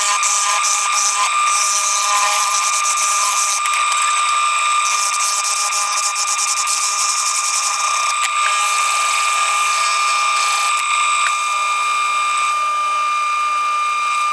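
JET mini wood lathe running with a steady, high motor whine while a piece of wooden broom handle is turned on it. A hiss of the tool and hands working the spinning wood comes and goes over the whine.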